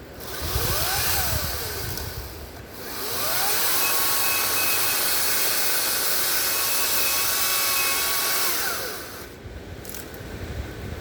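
Ryobi 40-volt brushless battery chainsaw's electric motor briefly spinning up and winding down, then revving to full speed, running steadily for about five seconds and winding down again.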